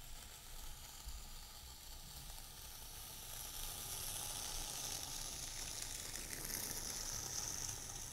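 A continuous high hiss, like sizzling, that grows louder and brighter from about three seconds in.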